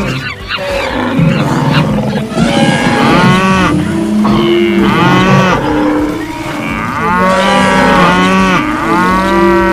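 Cattle mooing: several long, drawn-out moos, some overlapping, over a steady low rumble.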